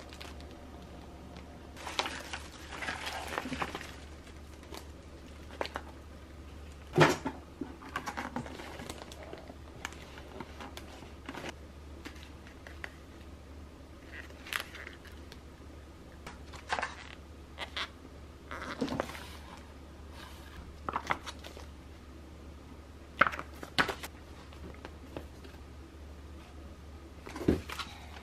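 Grocery packages being handled one at a time: plastic bags crinkling and cardboard boxes and plastic tubs tapping and knocking against a counter in short, scattered bursts, with one sharper knock about a quarter of the way in. A faint steady low hum lies underneath.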